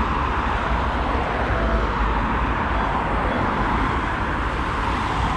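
Road traffic: cars passing close by on a multi-lane road, a steady rush of tyre and engine noise.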